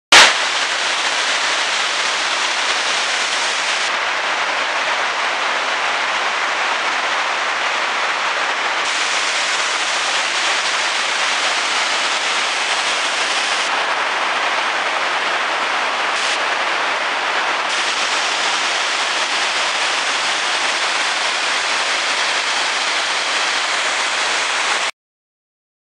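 Fast high water rushing over a dam spillway and through the whitewater rapids below it: a loud, steady, even rush of water. It starts abruptly with a brief louder burst and cuts off suddenly near the end.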